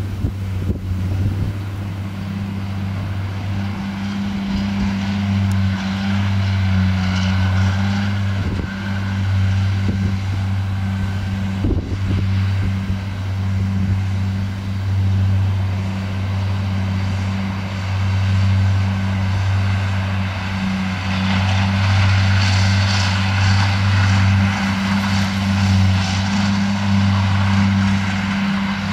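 Tractor engine running steadily under load, driving a front disc mower and a side disc mower through grass, with a deep constant hum. A higher rushing noise over it grows louder about three-quarters of the way through.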